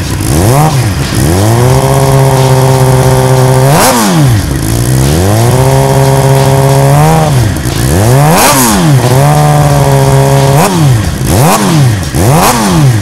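2007 Suzuki GSX-R600's inline-four engine revved through a Scorpion aftermarket exhaust. It gives quick blips that rise and fall, and three spells of a couple of seconds each held at steady high revs before dropping back.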